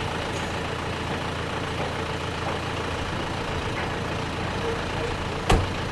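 Heavy vehicle engine running steadily, with a single sharp knock near the end.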